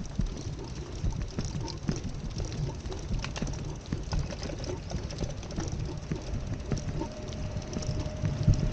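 Outdoor street ambience: a fluctuating low rumble with scattered light knocks and clicks. A faint steady tone comes in about two-thirds of the way through.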